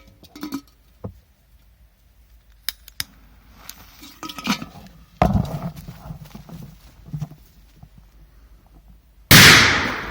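A P100 firecracker exploding inside a metal kettle near the end: one sharp blast that dies away over about a second, blowing off the kettle's lid. Before it come a few faint knocks and a dull thud.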